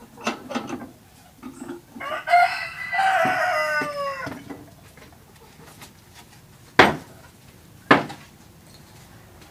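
A rooster crowing once, a long crow that falls in pitch at the end. Later come two sharp knocks about a second apart, from the plywood piece being handled.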